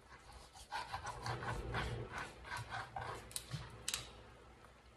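Large kitchen knife sawing back and forth through raw rabbit on a wooden cutting board, a quick run of rubbing strokes about three a second, with a couple of sharper clicks near the end as the blade meets the board.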